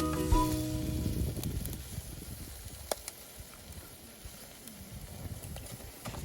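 Background music ends about half a second in, giving way to low, gusty wind rumble on the microphone, with a single sharp click near the middle.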